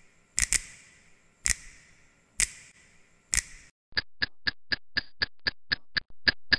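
Film-leader countdown sound effect: a sharp click about once a second, each ringing briefly. About four seconds in it switches to faster ticking, about four ticks a second.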